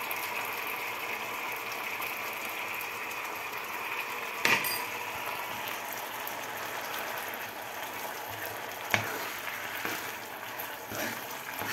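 Onion and wine sauce simmering and bubbling in a frying pan as a cornstarch slurry is stirred in with a metal spoon, which knocks against the pan about four and a half seconds in and again more lightly about nine seconds in.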